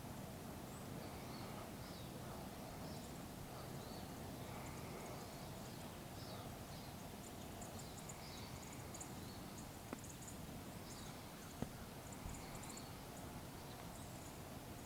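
Faint footsteps of a white-tailed deer walking through dry leaf litter, over quiet woodland ambience with scattered high chirps. Two sharp clicks stand out about two-thirds of the way through.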